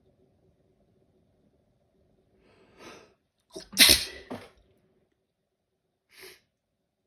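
A person sneezes once, loudly, about four seconds in, after a drawn-in breath. A short breath sound follows near the end. The sneeze belongs to an allergy sneezing fit.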